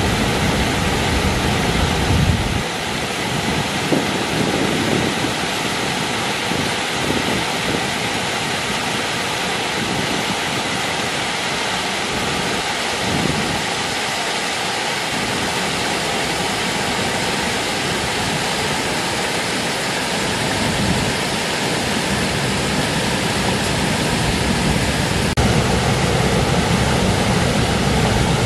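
Water spilling over a low river weir and splashing into the pool below, a steady rushing noise.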